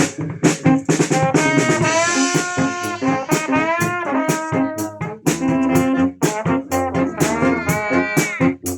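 A brass band playing a pop ballad: sustained horn melody lines with slides between notes over a repeating low bass line, kept in time by a steady drum beat.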